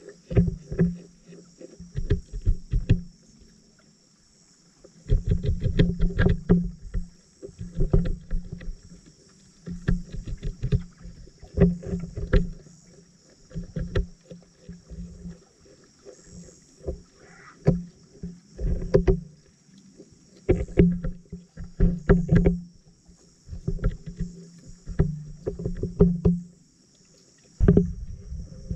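Underwater pops, clicks and sloshing in irregular bursts with short quiet gaps, as picked up by a submerged camera among tilapia feeding on floating kangkong leaves.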